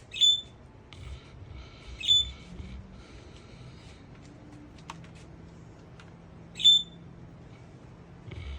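Sleeping St. Bernard giving three short, high-pitched squeaks: one at the start, one about two seconds in and one near the end. Between them there is soft breathy snoring.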